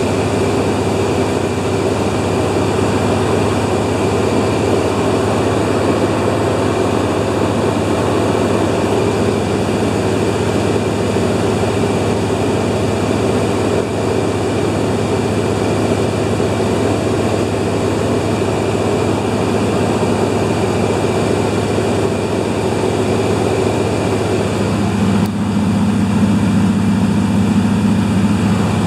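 De Havilland Beaver floatplane's engine and propeller running with a steady drone. About four seconds from the end, a lower hum joins in and the sound gets slightly louder.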